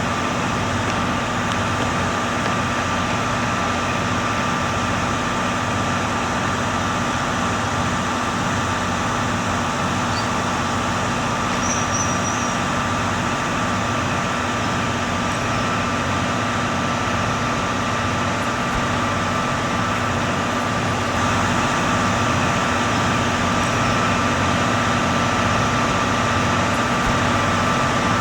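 KiHa 181 series diesel railcar engines idling steadily with a regular low throb and a steady whine, growing a little louder about 21 seconds in.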